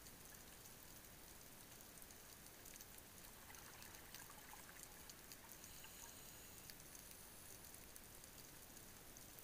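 Faint underwater ambience picked up by a dive camera: an even hiss with scattered faint clicks and crackles.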